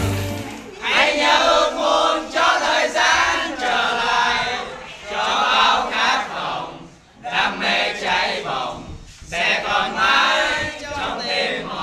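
A group of teenage boys chanting together in short loud phrases, with brief breaks about seven and nine seconds in.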